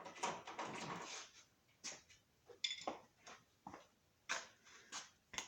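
Light metal clinks and rattles of hand tools: a 22 mm socket being swapped and fitted to a half-inch-drive breaker bar, as a string of short separate clicks after a brief rustle.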